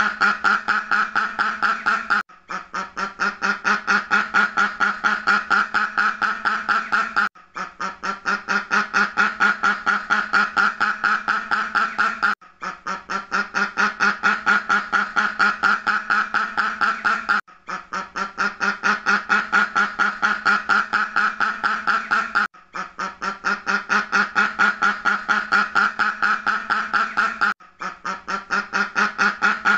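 Ducks quacking in a rapid, nonstop run of calls, a recorded effect looped so that it breaks off briefly and starts again about every five seconds.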